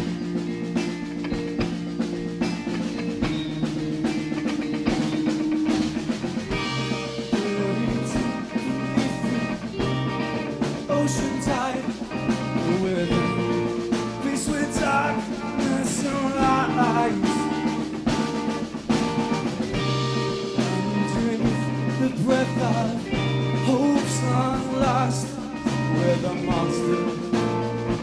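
Live rock band playing: two electric guitars, bass guitar and drum kit, with a steady pulsing bass line and regular drum hits.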